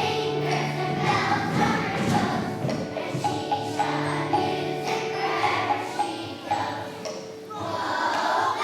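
Children's choir singing a song over musical accompaniment with a steady beat.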